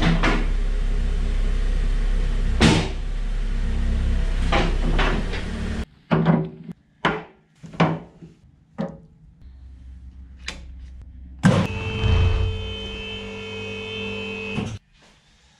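Hydraulic power unit of a EuroLifter 3500U scissor lift running steadily as it raises a car, with a few sharp clicks. Then a series of short knocks as a rubber lifting block is handled on the checker-plate ramp, and near the end the pump runs again for about three seconds with a higher whine and cuts off suddenly.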